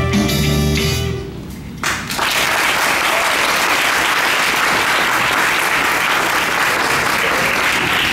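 A song's accompaniment ends on a held final chord about a second in, then audience applause follows, steady until the end.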